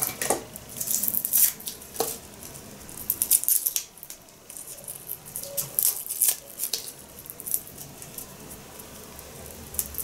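Dry garlic skins crackling and rustling as a clove is peeled by hand, with small irregular clicks and a light knock about two seconds in.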